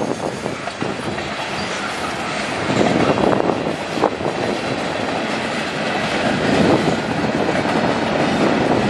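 Freight train cars (tank cars and covered hoppers) rolling past at close range, a steady loud rolling noise of steel wheels on rail with occasional sharp clacks as the wheels cross rail joints.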